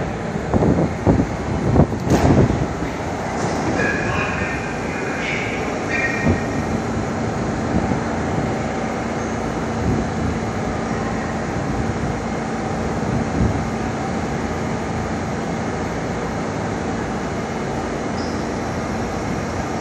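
R32 subway train rumbling and clattering as it pulls into the station. Its wheels squeal briefly as it comes to a stop, and it then stands with a steady low hum from its onboard equipment.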